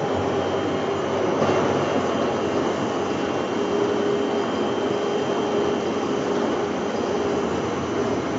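YGKJ560 wood sawdust pellet mill running: a steady, loud machine noise with a constant hum.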